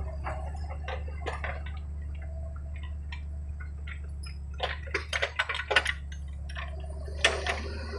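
Kubota U50 mini excavator running with a steady low engine drone, under a string of sharp metallic clicks and clanks. The clanks bunch together about five seconds in, and one loud knock comes near the end.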